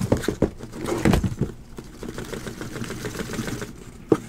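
Cardboard boxes of trading cards being handled on a table: a few sharp knocks and scrapes in the first second or so, a stretch of lower rubbing and shuffling, and one sharp knock about four seconds in.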